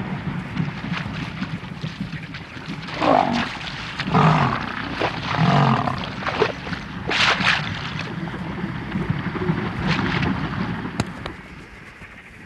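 A lioness snarling and growling as she charges a crowd of vultures at a carcass in shallow water, with several harsh outbursts in the middle, amid the flapping of scattering vultures. It grows quieter near the end.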